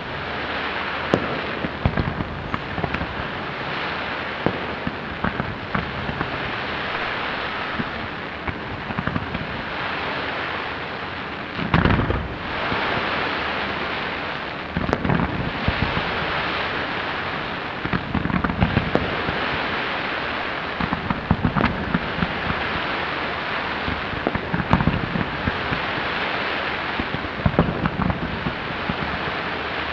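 Aerial fireworks display: frequent sharp bangs over a continuous hissing crackle, with a heavy low boom about twelve seconds in.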